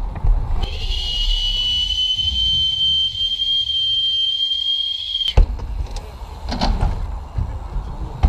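A steady, high-pitched ringing tone lasting about four and a half seconds, with the outdoor background cut away beneath it, like an edited-in sound effect. It cuts off suddenly with a sharp knock, and outdoor noise with a few more knocks follows.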